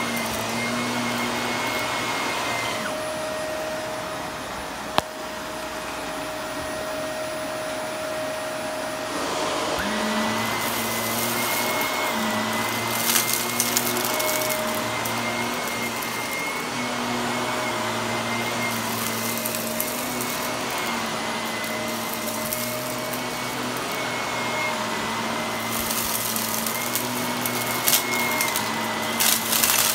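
Shark Navigator upright vacuum cleaner running on carpet with a steady motor whine whose tone shifts about a third of the way in. Brief crackles of small debris being sucked up come near the middle and again near the end, and there is one sharp click about five seconds in.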